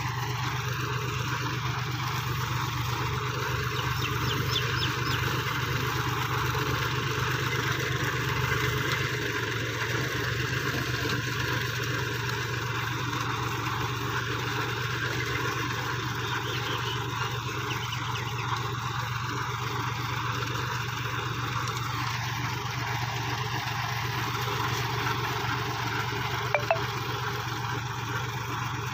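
Tractor engine running steadily while pulling a potato digger, with the rattle of the digger's rod elevator carrying soil and potatoes. A short sharp click comes about two seconds before the end.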